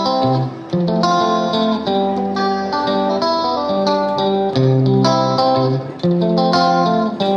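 Background music led by guitar, playing held chords that change about every second.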